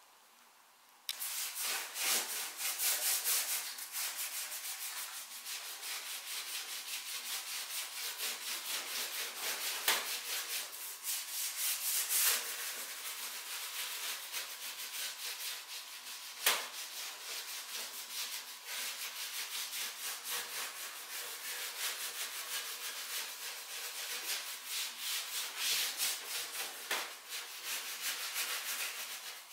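Wood being hand-sanded with abrasive in quick back-and-forth strokes, starting about a second in, as part of preparing the wardrobe's surface for finishing. A single sharp click sounds about halfway through.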